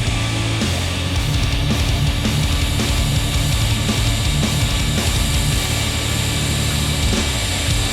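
Heavy metal background music with distorted guitar and drums.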